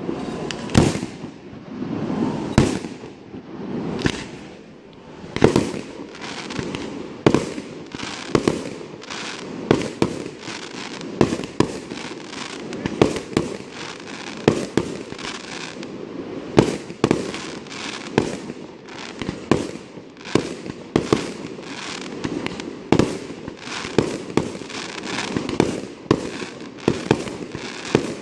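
Aerial firework shells bursting in quick succession: sharp bangs about once or twice a second, coming closer together in the second half.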